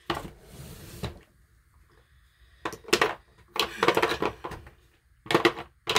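Rustling, then small plastic makeup items clattering and knocking together in several short bursts, as makeup is rummaged through and picked up.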